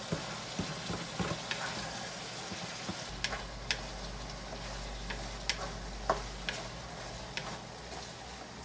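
Ground beef and sliced Vienna sausage sizzling in a nonstick wok, stirred with a wooden spatula that scrapes the pan and gives scattered light clicks.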